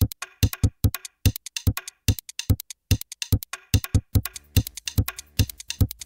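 Electronic background music: a steady drum-machine beat, joined about two-thirds of the way through by a low bass line.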